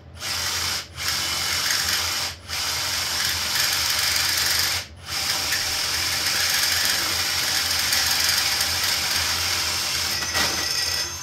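Ridgid drill with a 5/8-inch paddle bit boring through an aluminium plate held in a vise, a loud steady grinding. It stops briefly three times, about one, two and a half and five seconds in, then runs on and stops shortly before the end.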